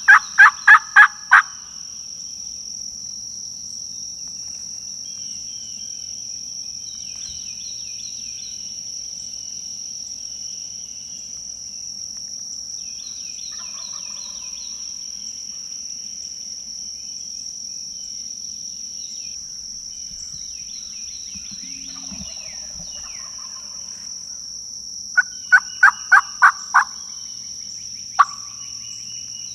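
Wild turkey calling: two loud runs of rapid, evenly spaced notes, about four a second, one at the start and one near the end, with one more single note soon after. Songbirds chirp faintly in between over a steady high insect hum.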